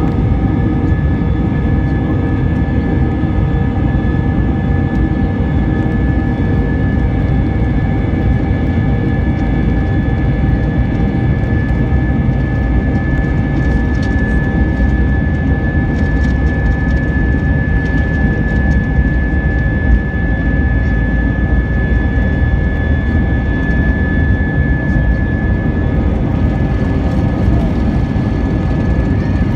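Airbus A320's jet engines at takeoff thrust, heard from inside the cabin: a loud, steady rumble with a high engine whine on top as the airliner rolls down the runway toward lift-off.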